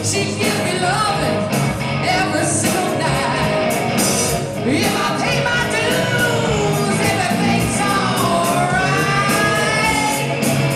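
Live rock band playing: electric guitars, bass guitar and drums through stage amplifiers, with a woman singing lead. Her voice glides through a long sung line in the last few seconds.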